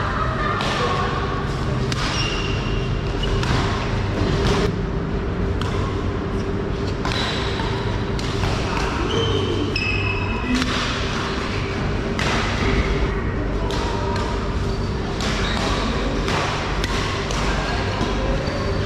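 Badminton rally: sharp racket-on-shuttlecock hits, roughly one a second, over steady background noise.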